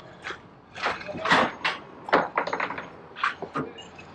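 Irregular knocks, clicks and scrapes of a metal paint tin being handled and its lid worked with a screwdriver, with a quick run of clicks about halfway through.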